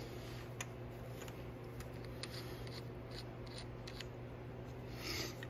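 Faint clicks and rubbing as a metal pistol sight pusher is picked up and handled, with a short scraping sound near the end, over a steady low hum.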